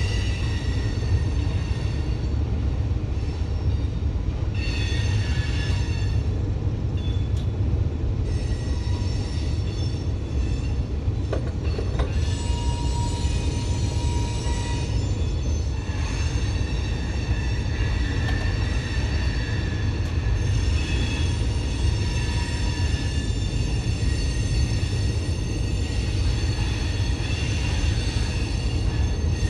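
Freight train moving with a steady low rumble, with high-pitched steel wheel squeal that comes and goes.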